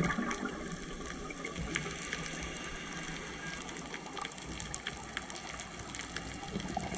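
Underwater reef sound heard through a camera housing: a steady water hiss sprinkled with sharp crackling clicks, typical of snapping shrimp. Near the end a louder low gush comes in, the diver's scuba regulator exhaling a burst of bubbles.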